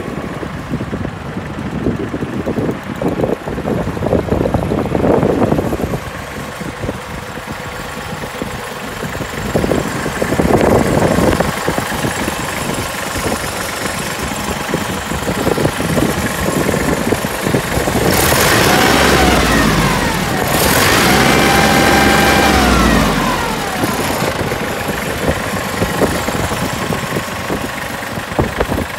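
Iseki TH26 compact tractor's diesel engine idling. About two-thirds of the way in it is revved up, held high for a few seconds and let back down to idle.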